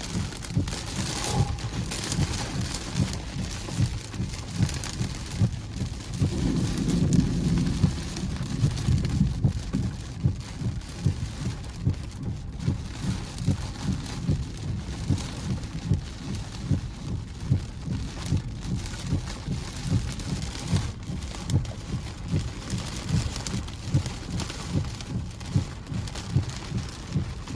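Gusty storm wind buffeting the microphone in uneven low rumbles, over a steady hiss of heavy rain, as a thunderstorm's gust front arrives. The buffeting swells loudest a few seconds in.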